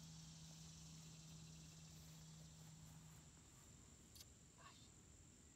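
Near silence with a faint, steady high-pitched chorus of insects such as crickets. A faint low hum stops about three and a half seconds in, and a click and a short falling squeak come about four seconds in.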